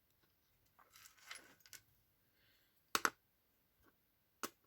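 Light clicks and clinks of small die-cast toy car parts being handled as the wheels are pulled off a cut axle. There is a soft scrape about a second in, a sharp double click around three seconds and a single click near the end.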